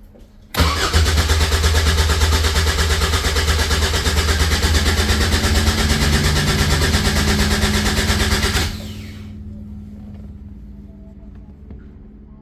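Caterham 7 620S's supercharged four-cylinder engine cranking hard on the starter for about eight seconds on a cold start without catching. It cuts off suddenly, leaving a faint steady hum.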